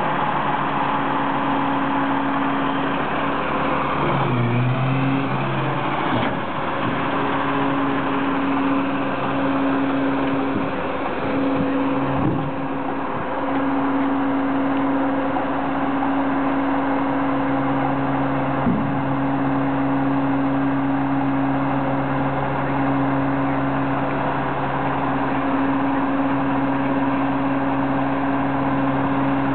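Diesel engine of a Peterbilt 335 tri-axle dump truck running steadily, a constant hum with a brief change about four to six seconds in, while the raised aluminium dump body is let down.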